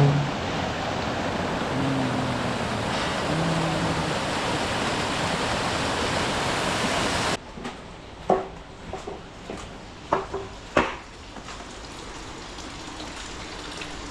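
Water pouring and splashing steadily, the sound of hot-spring water flowing into a bath. It cuts off suddenly about seven seconds in, leaving a quieter hiss with scattered drips and splashes.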